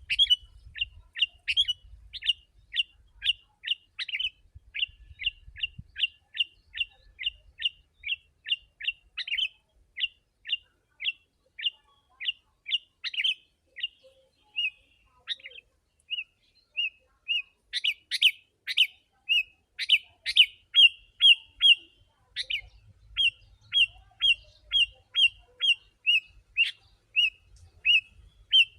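Sooty-headed bulbul (kutilang) calling in a rapid, dense series of short, clipped chirps, about three a second. The calling thins briefly near the middle, then resumes faster with sharper, higher notes.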